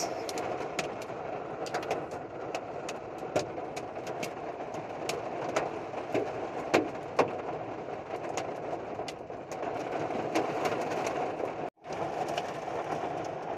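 Hail and rain pelting a pickup truck, heard from inside the cab: a steady rain hiss with many sharp, irregular clacks of hailstones striking the glass and body. The sound drops out for an instant near the end.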